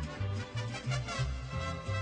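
Background music with a Latin, salsa-like feel and a bouncing bass line.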